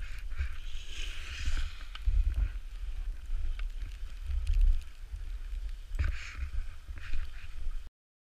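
Wind buffeting the camera microphone of a skier moving downhill, with the hiss of skis sliding over packed snow swelling and fading several times. The sound cuts off abruptly near the end.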